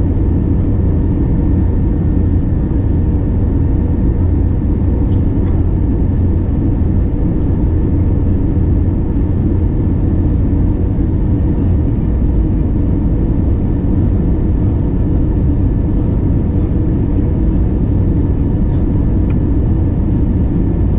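Cabin noise inside an Airbus A321neo airliner: steady engine and airflow rumble with a faint steady whine on top.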